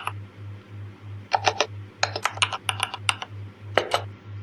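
Mechanical keyboard typing: irregular runs of sharp key clicks, with a pause of about a second near the start. A low hum pulses steadily underneath at about four beats a second.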